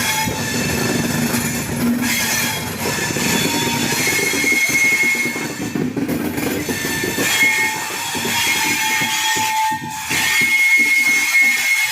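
A passenger train rolling slowly along the platform, its wheels screeching against the rails with high, steady squeals that come and go over a rumble. The rumble thins out over the last few seconds as the train slows.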